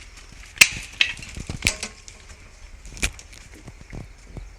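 A few scattered sharp clicks and knocks, the loudest a little over half a second in and another about three seconds in, over a faint hiss.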